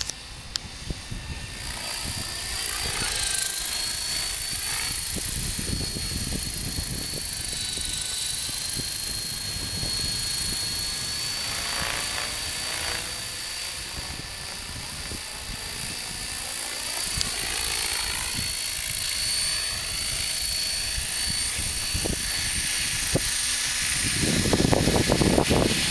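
Hurricane 500 radio-controlled helicopter flying overhead: a steady high-pitched whine with a fainter lower tone, wavering and sweeping in pitch as it manoeuvres. Near the end it comes in close and a loud low rushing takes over.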